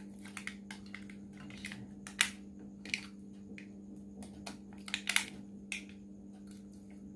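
A plastic phone charger plug and its USB cable being handled and uncoiled: scattered light clicks and taps, louder a couple of times, over a steady low hum.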